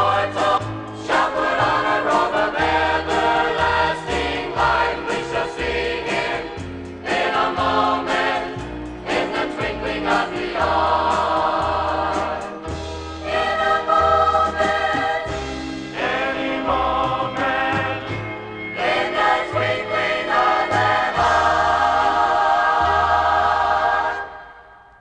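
Gospel music with a choir singing over an instrumental backing with a steady bass line. The song ends about a second before the end.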